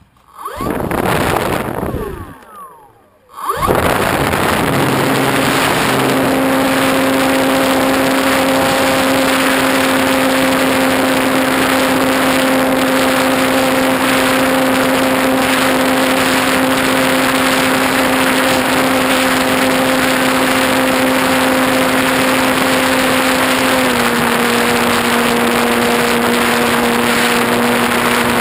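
Electric motor and propeller of a ParkZone Trojan RC plane, heard from the camera on the airframe. It revs up in two short surges with gliding pitch, then holds a steady high hum under loud wind rush in flight. The hum drops slightly in pitch near the end as the throttle eases.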